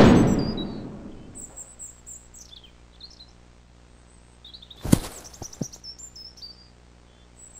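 A single gunshot at the very start, echoing away over about a second, with birds chirping afterwards. About five seconds in comes a heavy thud, the shot man's body falling to the ground, followed by a couple of small knocks.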